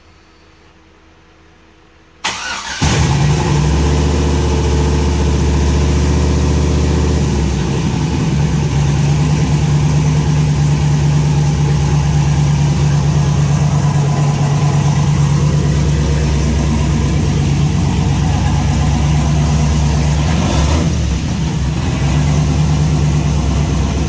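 Turbocharged LS V8 in a Lexus IS300 starting about two seconds in, then running loud and steady. This is the engine running after its head gasket rebuild.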